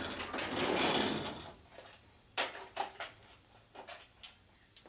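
Metal tool-chest drawer sliding on its runners with a rattling rush, then a few sharp clinks of small tools knocking together as the drawer is rummaged through.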